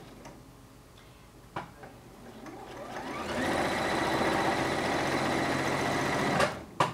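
Electric sewing machine at rest for a couple of seconds with one click, then starting up about two and a half seconds in, speeding up and stitching steadily for about three seconds. It stops near the end with two sharp clicks.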